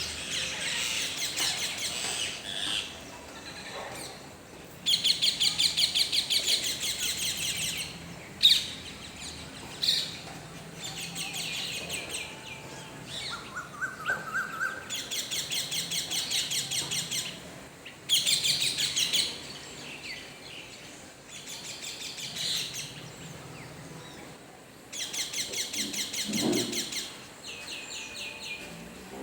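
Rose-ringed parakeets calling in a tree: bouts of rapid, shrill chattering notes, each lasting two or three seconds, come about five times, with scattered single calls between them.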